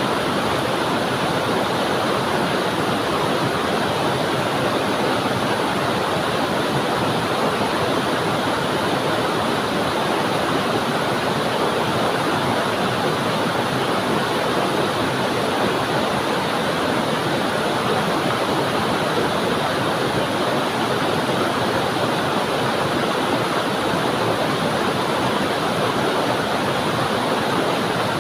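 Waterfall: water falling onto rocks and flowing on, a steady, even rush that does not change.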